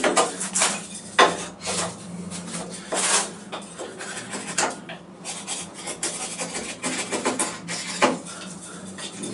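Folding knife blade whittling a small block of wood: a string of irregular scraping strokes as shavings are cut off, the strongest a little over a second in.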